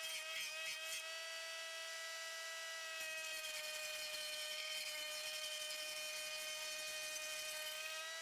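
Posch SchälProfi log debarker running with a steady, fairly quiet motor whine.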